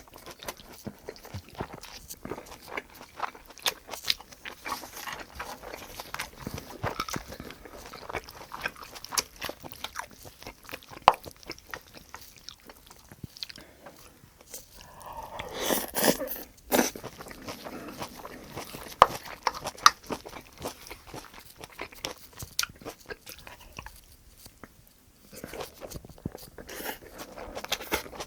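Close-miked chewing and smacking of someone eating braised kimchi with pork and rice, with many small wet clicks of the mouth. A louder, noisier mouthful about fifteen seconds in.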